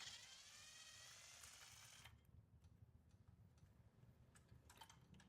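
Near silence: a faint whine that rises slightly in pitch over about the first two seconds, then a few faint light clicks.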